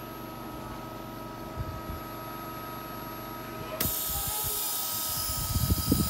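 Vita Vacumat 6000 M porcelain furnace running under vacuum, a steady machine hum with a high whine. About four seconds in, a sudden hiss of air starts as the vacuum is released.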